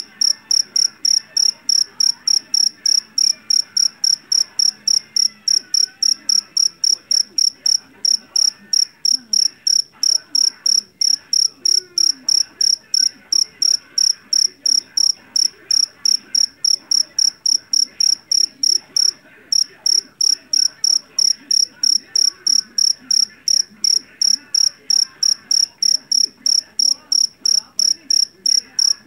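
A jeliteng (Javanese) field cricket chirping loudly and shrilly in a steady rhythm of about three high chirps a second, with one brief break about two-thirds of the way through.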